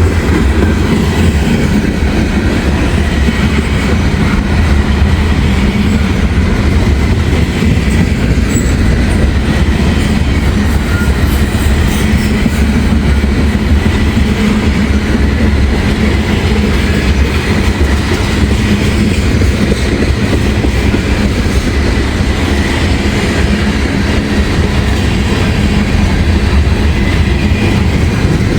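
Freight train cars rolling past close by: a steady loud rumble of wheels on rail with clacking over the rail joints.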